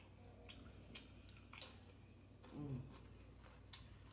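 Faint close-up chewing of a taco salad with tortilla chips: scattered soft crunches and mouth clicks, with a short low hum from the eater a little past halfway.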